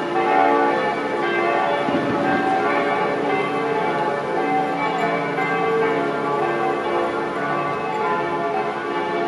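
Church bells ringing: several bells struck over and over, their tones overlapping and hanging on. There is a faint bang about two seconds in.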